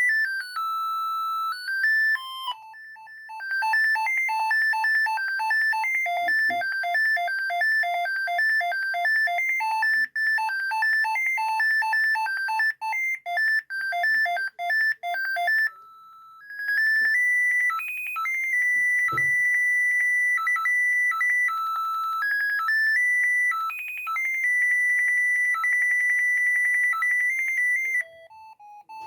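Siemens ME45 mobile phone playing its built-in monophonic ringtones one after another as electronic beeping melodies. A tune ends, then a fast tune of short alternating notes plays for about thirteen seconds. After a brief pause comes a slower tune of longer held notes, and near the end another tune starts.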